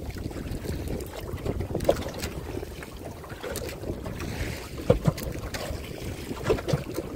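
Wind rumbling on the microphone, with a few short knocks now and then, the sharpest about five seconds in.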